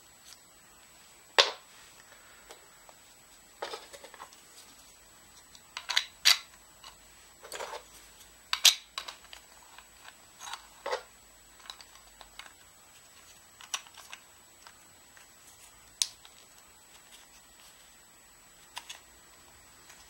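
3D-printed PLA plastic parts handled and fitted together by hand: irregular clicks and clacks, with a few sharper snaps, the loudest about a second in and again around the middle.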